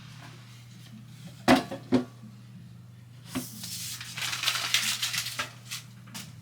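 Two sharp knocks, then a few seconds of rustling and crinkling, with a few light clicks near the end, over a steady low hum.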